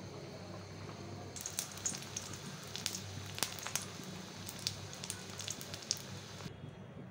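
An egg frying in hot oil in a wok: sizzling with a dense run of sharp pops and crackles. It starts about a second and a half in and cuts off abruptly near the end.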